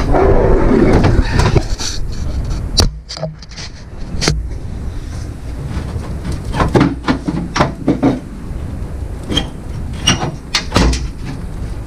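Hand work on the truck's windshield cowl: a stretch of scraping and rubbing, then scattered sharp clicks and knocks of plastic and metal parts being handled and pried.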